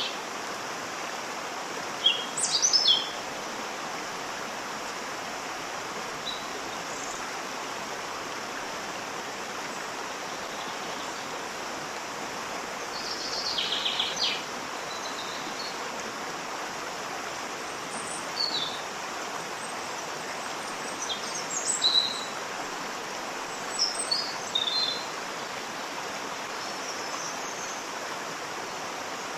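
Waterfall running with a steady, even rush of water. Birds chirp over it in short bursts about five times, the loudest a little after the start and about two-thirds of the way through.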